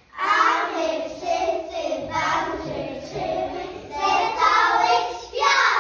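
Young children singing, their voices picked up through a microphone.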